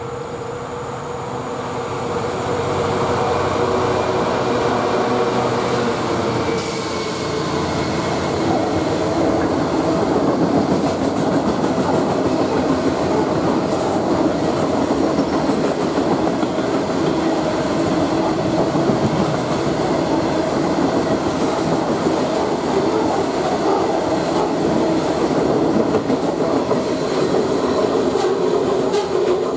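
Class 66 diesel freight locomotive, with its two-stroke EMD engine, growing louder as it approaches and passes, then a long rake of loaded coal hopper wagons rumbling and clacking over the rail joints in a steady stream.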